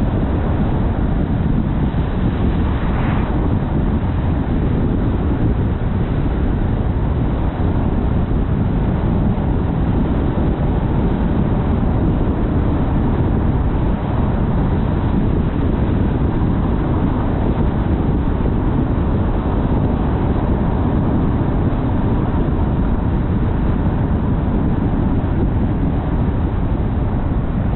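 A car driving at a steady speed: a constant low rumble of road and engine noise.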